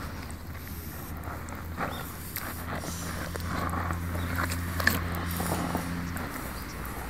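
Rubber rain boots squelching and sloshing in thick, wet mud as the feet shift in a puddle, with small sucking and splatting sounds. Under it runs a low steady hum that stops about six seconds in.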